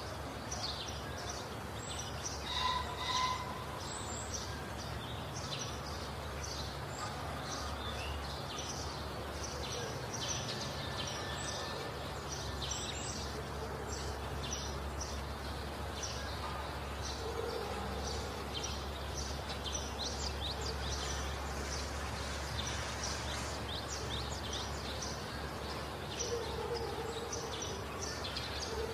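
Many small birds chirping busily and irregularly in the trees, over a steady low rumble.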